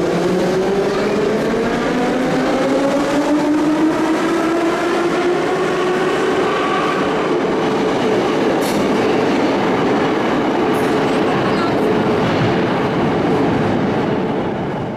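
Ezh-3 metro train pulling out and accelerating: its traction drive whines in several tones that rise in pitch over the first seven seconds or so and then hold steady, over the continuous rumble of wheels on the rails.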